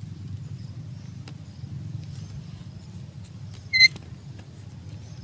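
Outdoor background of a steady low rumble and a thin, high, steady insect drone. A little under four seconds in, one short, loud, high-pitched beep cuts through.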